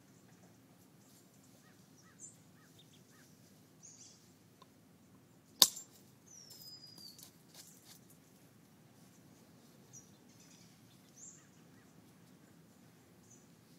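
A single sharp crack of a bopper striking green-sheen obsidian in flintknapping, about halfway through, with a few faint ticks before and after it.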